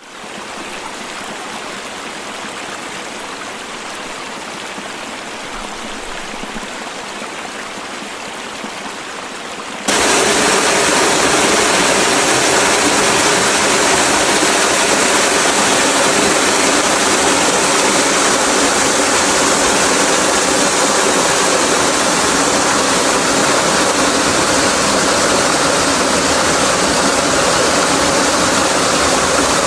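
Steady rush of a waterfall on the Hérisson river, a thin stream of water falling onto a shallow pool. About ten seconds in it cuts abruptly to a louder, fuller rush.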